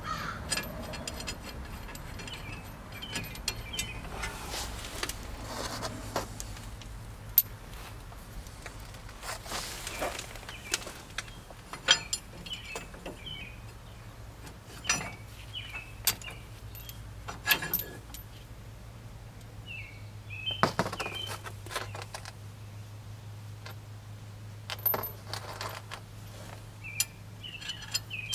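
Irregular metallic clinks and taps as steel U-bolt nuts and washers are handled and threaded on by hand at a van's rear leaf-spring axle, over a steady low hum.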